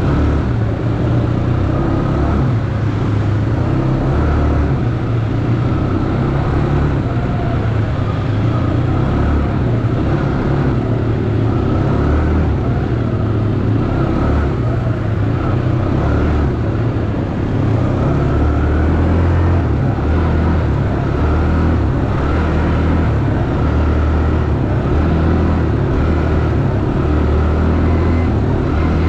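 ATV engine running while riding: a steady low rumble that swells and eases slightly with the throttle.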